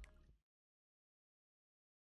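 Near silence: the last trace of background music dies away within the first half second, then dead digital silence.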